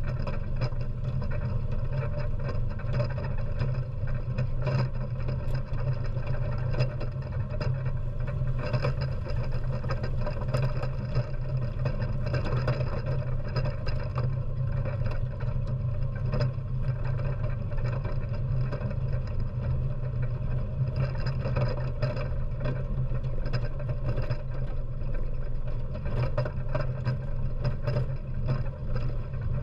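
ATV engine running steadily as the ATV drives over a rough dirt track, picked up by a camera mounted on its front magnetic sweeper bar, with frequent short clicks and rattles over the low engine drone.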